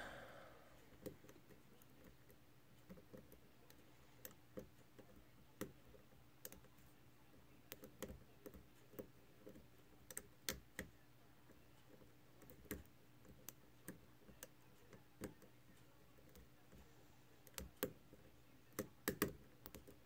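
Faint, irregular metallic clicks of a Peterson hook pick lifting the pin stacks in an American Lock 1100 padlock cylinder held under tension: single pin picking. The clicks come singly and in small groups, bunching together near the end.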